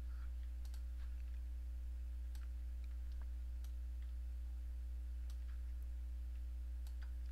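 Scattered clicks of a computer mouse and keyboard, a dozen or so spread irregularly, over a steady low electrical hum.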